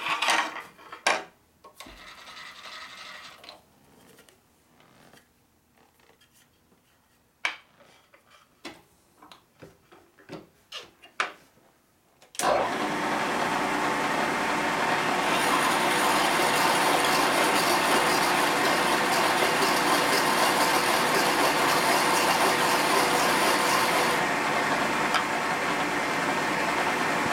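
A few light clicks and knocks as a brake backing plate is handled on a milling machine table. About halfway through, the vertical mill's spindle starts suddenly and runs steadily, with a drill bit cutting into the backing plate and a high hiss during the cut.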